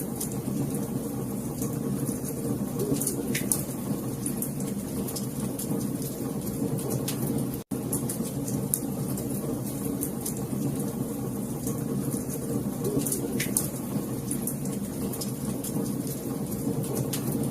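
Wood fire burning with a steady low rumble and scattered sharp crackles and pops. The sound cuts out for an instant about eight seconds in.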